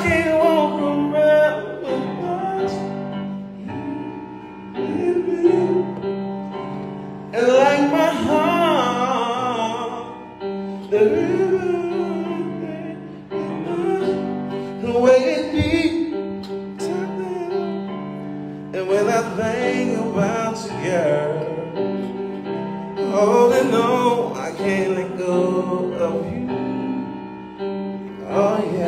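A singer's voice with a wavering vibrato, in phrases of a few seconds, over sustained keyboard chords.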